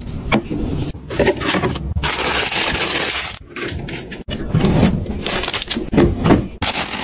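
A cabinet door pushed open, then plastic-wrapped packs and wire-mesh storage baskets handled inside: rustling and scraping in uneven bursts, with one sharp click about four seconds in.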